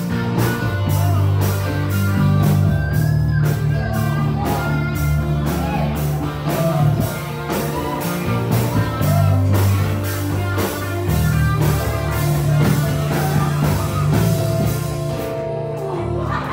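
Live rock band playing: electric bass and electric guitars over a steady drum-kit beat, with a young woman singing.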